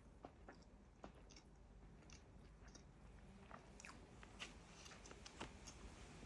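Faint, soft chewing of chocolate caramel cake: quiet wet mouth clicks and smacks scattered through.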